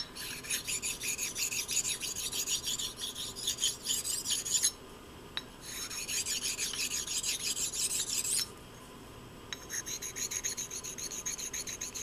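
Sharpening stone rubbed in quick back-and-forth strokes, about five a second, along the edge of a steel parallel-clamp jaw, stoning the freshly surface-ground edge. Three bouts of scraping with short pauses between them.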